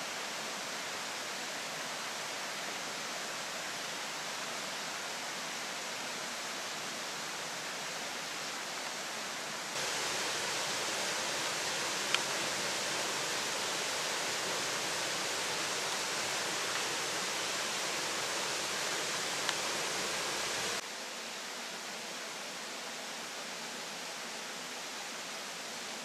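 Steady rushing of a flowing stream, an even hiss with no rhythm. It cuts abruptly louder about ten seconds in and drops back again about ten seconds later, with two faint ticks in between.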